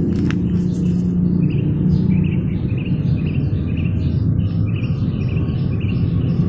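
A short high chirp repeated about three times a second, starting about a second in, over a steady low rumble.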